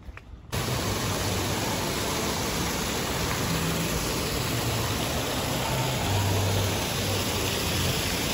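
Water jets of an ornamental fountain splashing into its basin: a steady rushing hiss that starts abruptly about half a second in, after a couple of faint footsteps.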